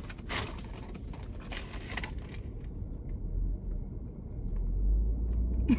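Rustling and handling noises from a cardboard food box being held up for about the first two and a half seconds, over a low rumble inside a parked car cabin that grows a little louder near the end.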